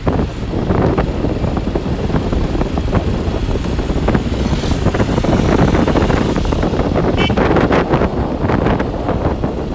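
Honda CB125 motorcycle's single-cylinder engine running steadily at road speed, with heavy wind buffeting on the microphone.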